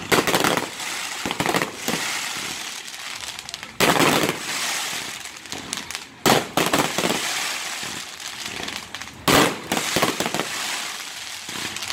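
Aerial fireworks display: four loud shell bursts, near the start, about four seconds in, about six seconds in and about nine seconds in, with steady crackling of burning stars between them.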